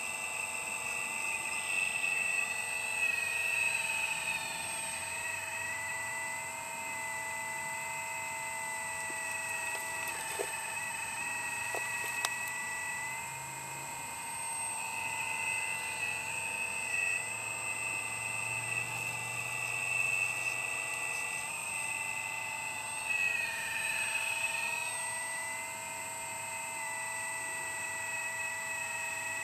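Radio-controlled model excavator's motors whining steadily as it digs and swings its arm. The pitch sags briefly every so often, with a few faint clicks.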